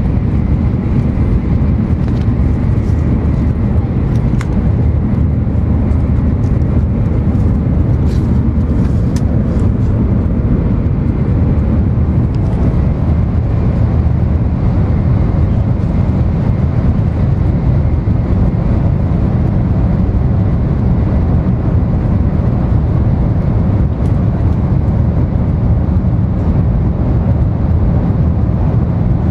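Steady low rumble of an N700 series Shinkansen running at speed, heard inside the passenger cabin, with a few faint ticks about eight to ten seconds in.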